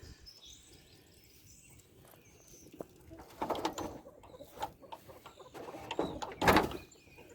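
An animal pen door or gate being unlatched and opened: irregular rattles and knocks, then one loud clank about six and a half seconds in. Chickens cluck and small birds chirp faintly in the background.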